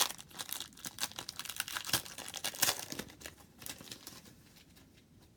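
A trading-card pack wrapper crinkling and tearing as it is opened, a dense run of irregular crackles that dies away after about four seconds.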